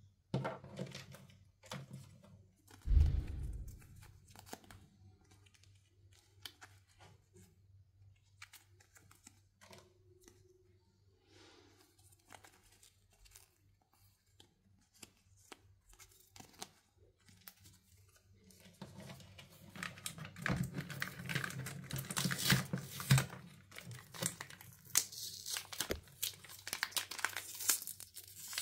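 Small plastic toy pieces handled and clicking, with a thud about three seconds in. About two-thirds of the way through, a plastic wrapper packet is crinkled and torn open, dense and continuous to the end.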